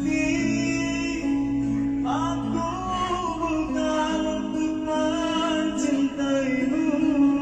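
Street busker singing a slow song in long held notes over steady instrumental accompaniment.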